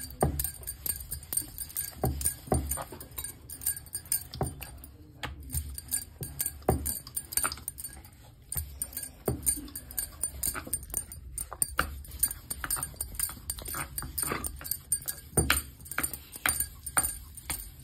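Wooden rolling pin rolling out dough on a wooden board: repeated uneven knocks and rumbles of wood on wood, with metal bangles clinking on the rolling wrist.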